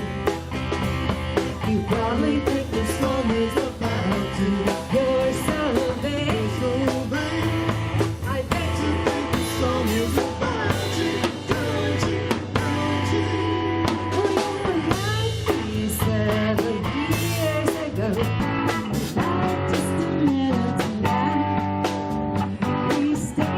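Live rock band playing a 1970s cover song, with drum kit and guitar.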